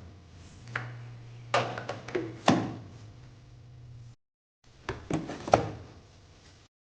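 A few sharp knocks and clacks of household items being handled and set down, in small clusters, over a steady low hum in the first half. The sound cuts out abruptly twice.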